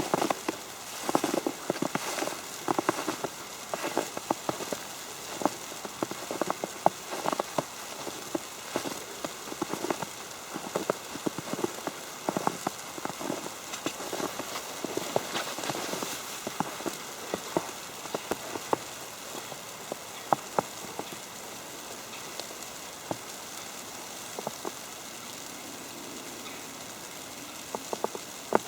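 Falling snow ticking on an umbrella: many small, irregular taps over a steady hiss, thicker in the first two-thirds and thinning out towards the end.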